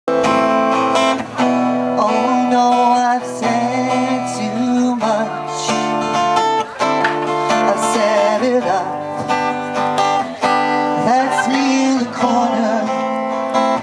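Acoustic guitar strumming chords with melody notes, the instrumental lead-in to a song played live.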